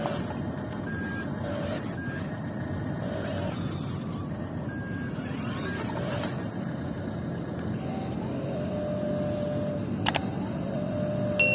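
Radio-controlled model construction machines running: a steady whir of small electric motors and gears, with short electronic beeps repeating through the first half, a sharp click about ten seconds in and another near the end.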